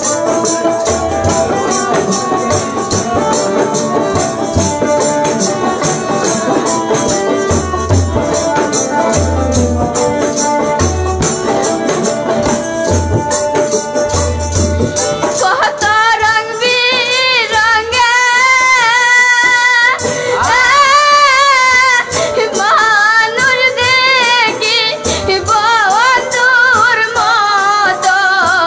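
Bengali bicched folk-song band: an instrumental interlude of hand drum, steady jingling percussion and sustained melody lines, then about halfway in a woman starts singing over the band with a wavering, bending voice.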